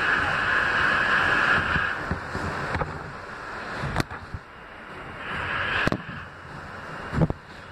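R160B subway train running on elevated steel track, heard from inside the front car. A loud rail noise with a hissing, squealing edge fades about two seconds in and returns briefly near six seconds. A few sharp clacks come from the wheels passing over rail joints.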